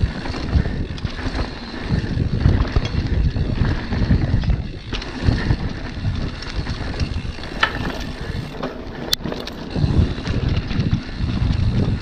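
Mountain bike rolling fast down a dirt and gravel trail: tyre rumble and frame rattle under heavy wind buffeting on the microphone, with scattered knocks and a sharp click about nine seconds in.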